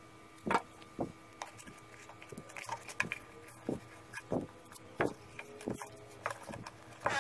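An empty thick-plastic shampoo bottle handled and turned on a tabletop while lace is pressed onto it: irregular light knocks and taps of the plastic, one or two a second, over a faint steady hum.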